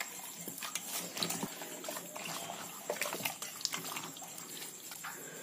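Hands squishing and sloshing raw mutton pieces and whole onions through a little water and oil in a metal pot: faint, irregular wet squelches and small clicks.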